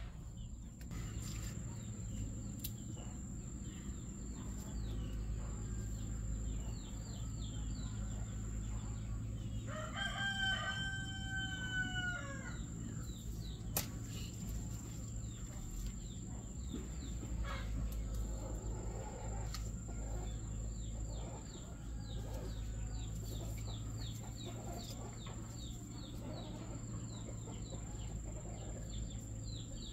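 A rooster crows once, a single call of about two seconds near the middle, over a steady high-pitched buzz and rows of quick, repeated chirps.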